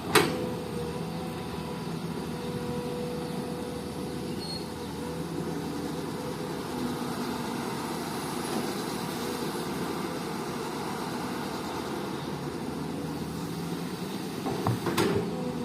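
Komatsu PC200 excavator's diesel engine running steadily under a steady tone, with a sharp knock just after the start and a few knocks about a second before the end.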